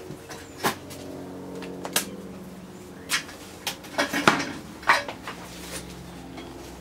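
Energised arc welder transformer humming steadily, with irregular sharp clicks and clatters; the loudest come in a cluster about four to five seconds in.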